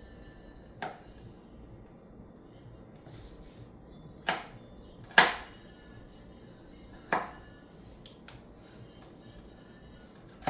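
Kitchen knife chopping through green pepper onto a cutting board: five sharp, irregularly spaced strikes, the loudest about five seconds in.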